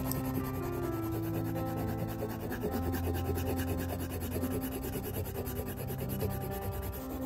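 Blue colored pencil shading on brown kraft paper: quick back-and-forth strokes of the pencil lead rubbing across the paper. Low held tones that change pitch every second or two sit underneath.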